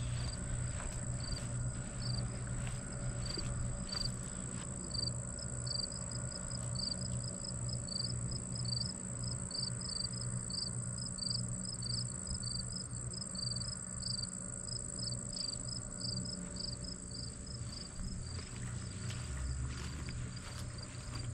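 Crickets chirping: short chirps repeated at one high pitch, several a second, starting a few seconds in. A hiker's footsteps sound low underneath.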